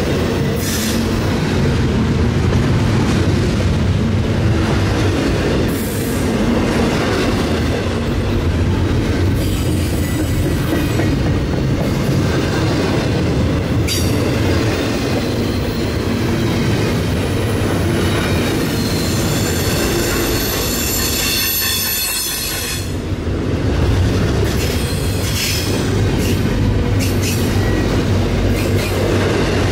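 Cars of an intermodal freight train rolling past steadily. The wheels squeal with a high thin whine, strongest a little past the middle, and there is a single sharp click about halfway through.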